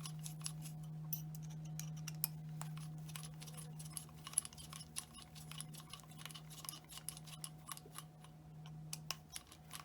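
Scattered small metallic clicks and ticks of an RC truck's front differential being worked loose and taken apart by hand, over a steady low hum.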